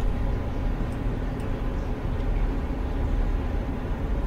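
Steady low hum and hiss of background noise, with no distinct events.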